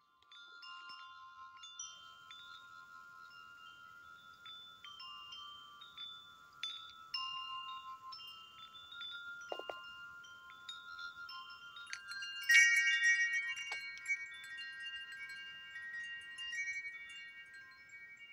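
Chimes ringing: many high, clear metallic notes struck at random and left to overlap, with a louder flurry of notes about twelve and a half seconds in.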